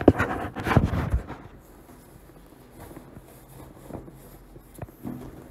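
Rustling and knocking handling noise with sharp clicks for about the first second, then a quiet room with a few faint clicks.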